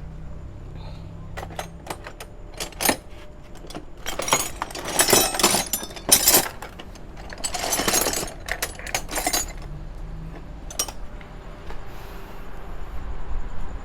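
Metal hand tools and parts clinking and rattling against each other during work on a car's air-conditioning compressor: scattered sharp clicks, with two longer spells of dense rattling in the middle.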